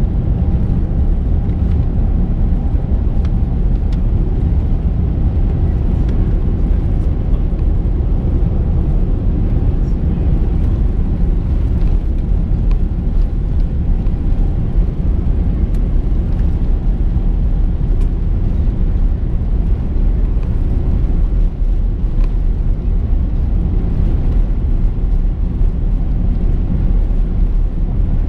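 Steady low rumble of an Airbus A350-900 taxiing, heard from inside the cabin: its Rolls-Royce Trent XWB engines at taxi power and the wheels rolling over the taxiway, with a few faint ticks.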